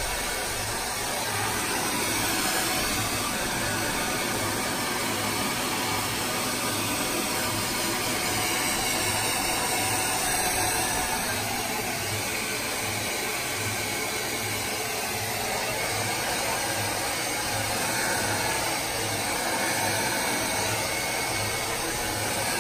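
DryBar Buttercup hair dryer running steadily, blowing air as it is swept through damp hair, its loudness swelling a little as it moves.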